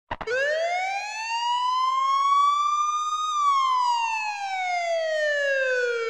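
LEGO police car's electronic toy siren wailing: one buzzy tone rising slowly for about three seconds, then falling back for about three, after a couple of short clicks at the very start.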